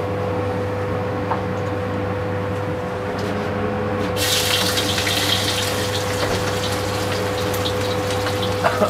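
Commercial kitchen range running with a steady low hum. About four seconds in, a loud rushing hiss starts suddenly and carries on.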